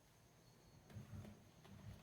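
Near silence, with a few faint low knocks and clicks in the second half.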